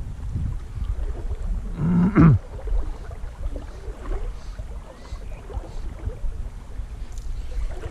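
Wind rumbling on the microphone over the running river, with one short sound falling in pitch, like a low call or groan, about two seconds in.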